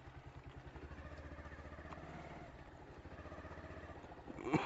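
Motorcycle engine running steadily with a rapid, even pulse. Near the end there is a brief, louder sound that rises in pitch.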